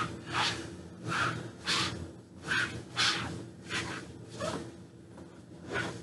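Short, irregular swishes of a foam paint brush stroking paint onto a refrigerator door, about one every half second to a second, over a steady low hum.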